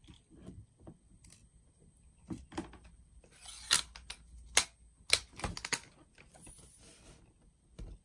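A run of sharp mechanical clicks and clacks, spaced unevenly, as a VSR-10 bolt-action airsoft sniper rifle is handled and readied to fire after a hop-up adjustment. The loudest clacks fall in the middle.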